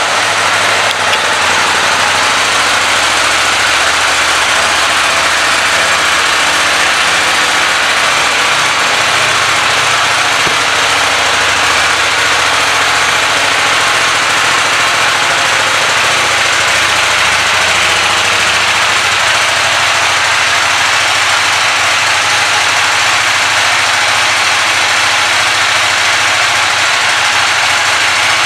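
KTM 790 Duke's 799 cc parallel-twin engine idling steadily on its stock exhaust.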